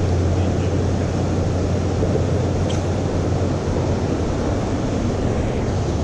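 Steady rush of creek water pouring over a low weir, a dense, low-pitched noise that never lets up.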